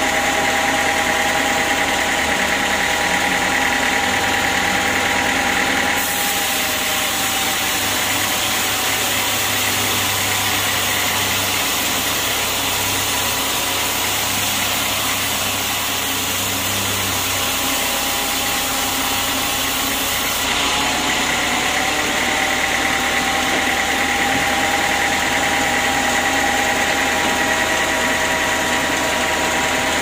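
Homemade band sawmill running steadily, its blade cutting lengthwise through an acacia log, with a steady high whine over the machine noise.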